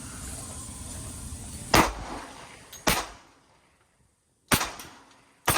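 Four single gunshots from a firearm on an outdoor range, one to one and a half seconds apart, each a sharp crack with a short tail.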